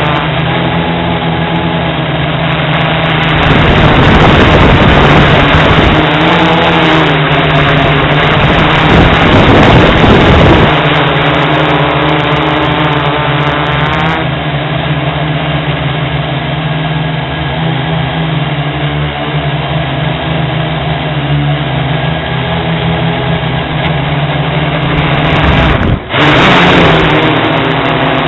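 Hexacopter's electric motors and propellers humming steadily, heard from the camera mounted on the aircraft, with small shifts in pitch. Wind buffets the microphone from about 3 to 11 seconds in, and the sound drops out for an instant near the end.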